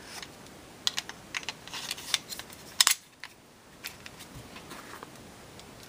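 A .380 pocket pistol being put back together by hand: a run of small sharp metal and polymer clicks and scrapes as the slide is handled and fitted onto the frame, the loudest click about three seconds in.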